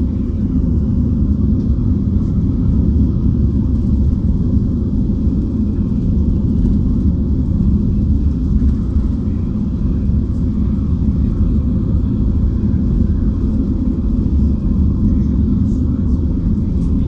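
ALSA coach under way, a steady low rumble of engine and tyre noise heard from inside the cabin.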